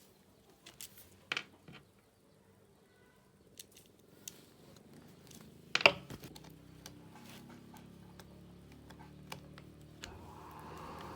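Scattered clicks and knocks of tools and small engine parts being handled, with one sharp clank about six seconds in. A steady hiss sets in near the end.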